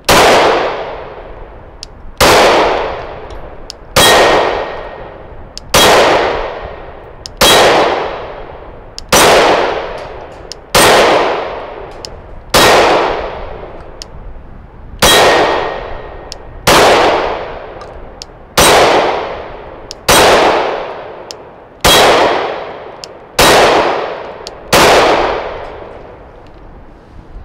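Glock 19 9mm pistol with a nickel-boron (NiB-X) coating fired at a slow, steady pace, about fifteen single shots roughly one every one and a half to two seconds, each with a short fading echo.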